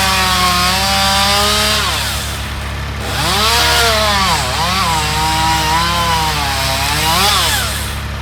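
Gas chainsaw running and cutting, its engine pitch dropping and climbing again several times as it works through the wood.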